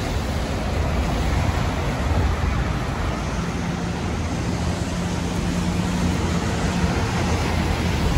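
City street traffic noise: a steady wash of vehicles, with an engine's steady hum standing out for a few seconds in the middle.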